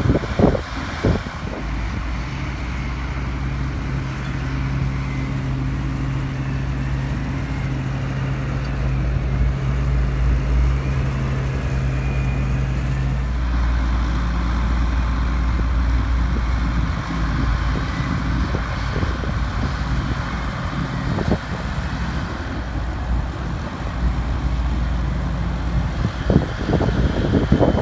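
Heavy diesel engines of tractors and a wheel loader working a grass silage clamp: a steady deep engine drone. A held engine tone drops out about halfway through, and the drone goes on.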